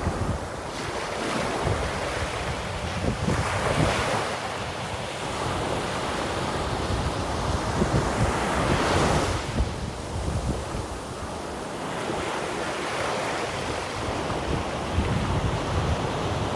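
Ocean waves breaking and washing on the shore, swelling and easing, with wind buffeting the microphone.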